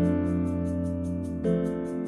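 Background music: a gentle instrumental of sustained notes, with a new chord struck about one and a half seconds in.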